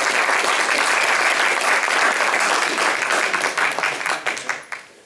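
Audience applauding, the clapping thinning into a few scattered claps and dying away near the end.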